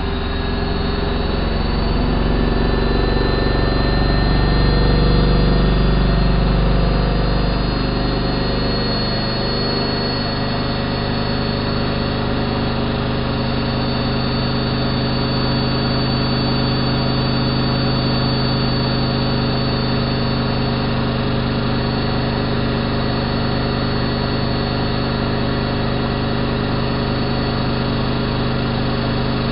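Elin WM26AAA washing machine (Antonio Merloni build) speeding up into a spin: a deep rumble with a rising pitch that peaks a few seconds in, then settles about ten seconds in into a steady, even hum and whine of the drum spinning at high speed.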